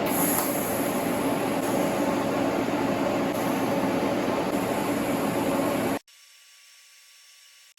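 A metalworking tool running with a loud, steady rushing noise, which cuts off suddenly about six seconds in.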